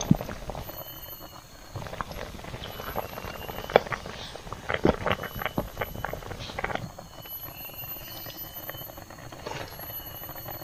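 Wooden spatula knocking and scraping against a metal wok while stirring a fish broth, in scattered sharp taps with a small cluster about halfway through.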